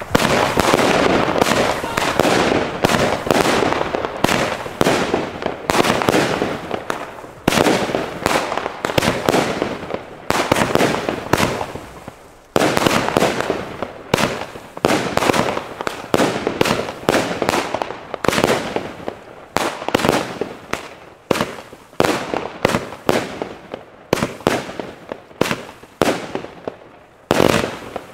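Röder 'Billich und Willich Nr. 7' firework battery firing shot after shot, several a second, each launch and star burst followed by crackling. The volley runs without a break apart from a short lull midway, and dies away at the very end.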